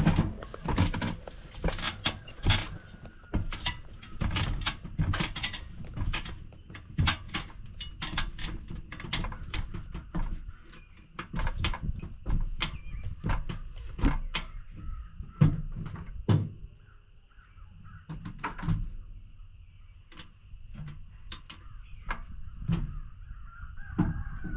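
Hammer blows nailing wooden purlins onto garage trusses: irregular runs of quick, sharp strikes, thinning out past the middle.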